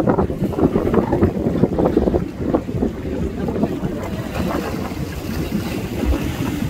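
Strong wind buffeting the microphone with a low, fluttering rumble, over the wash of choppy sea.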